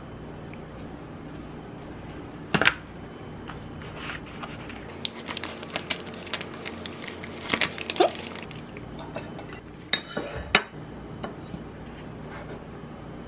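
Dishes and utensils clinking and knocking on a stone countertop, with a sharp knock about two and a half seconds in and several more around eight and ten seconds. In between, a food packet crinkles as it is peeled open.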